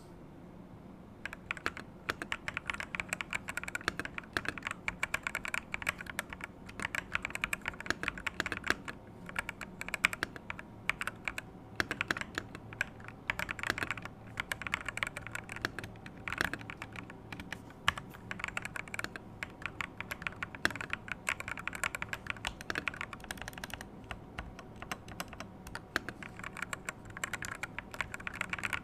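Typing on a Monka A87 Pro mechanical keyboard with PBT dye-sub keycaps: fast, continuous keystrokes in runs, starting about a second in.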